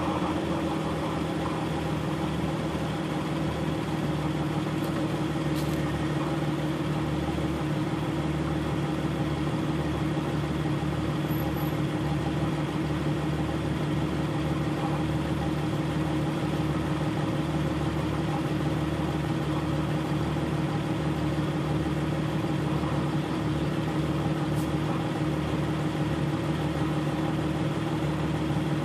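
Vehicle engine idling steadily, a low, even hum that does not rise or fall.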